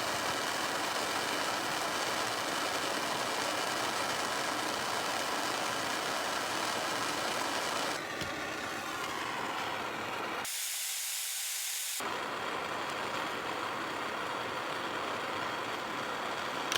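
Steady hiss of a gas burner flame heating the tapered end of a steel rod to harden it, ahead of a water quench.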